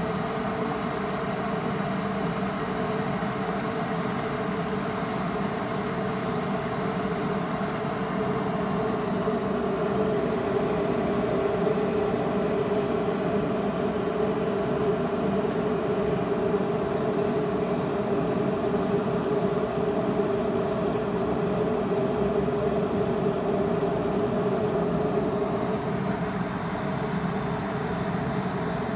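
De'Longhi Active Line KBLA3001 electric kettle heating a full 1.7 L of water: a steady hiss and hum of water coming up toward the boil, growing a little louder about ten seconds in.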